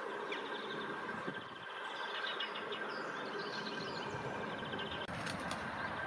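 Outdoor ambience of a distant traffic rumble with small birds chirping and trilling, under a steady thin high tone; a few sharp clicks about five seconds in.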